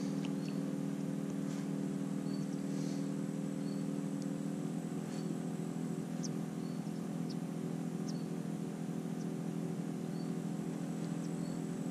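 A steady motor drone that holds one even pitch throughout, with a few faint, short, high chirps scattered over it.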